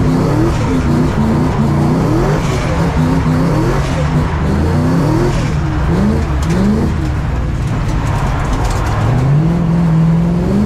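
Supercharged Boss 302 5.0 V8 of a Ford Mustang RTR drift car being driven hard, its pitch repeatedly climbing and dropping back, with a longer climb near the end.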